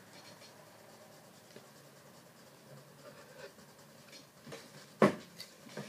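Pencil lightly shading on spiral notebook paper, a soft faint scratching. About five seconds in comes one sharp knock.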